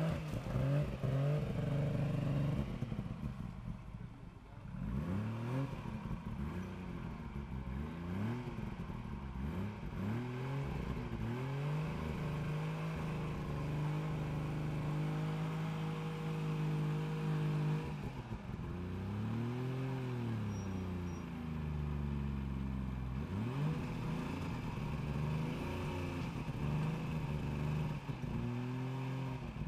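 Suzuki 4x4's engine revving up and down again and again as it crawls a steep rocky climb, with a brief drop about four seconds in and revs held steady for several seconds around the middle.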